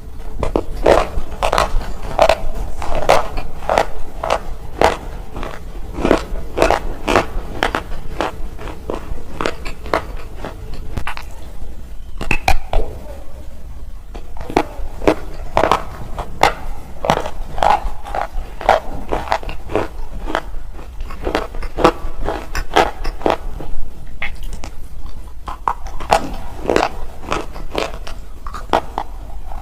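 Black slate chips being bitten and chewed, a dense run of sharp, crackly crunches several a second, with a couple of brief lulls.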